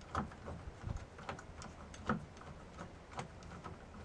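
Screwdriver turning the terminal clamp screw of a solar charge controller, tightening it down onto a battery lead: a series of irregular light clicks.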